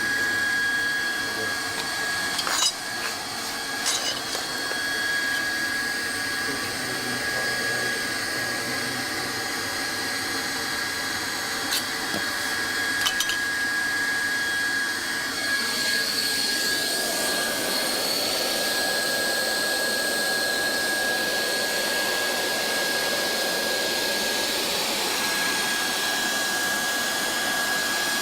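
Leister Triac hand-held hot-air plastic welding gun running, its blower giving a steady hiss with a constant high whine, used to weld vinyl flooring. A few sharp clicks come in the first part, and the air noise grows fuller about halfway through.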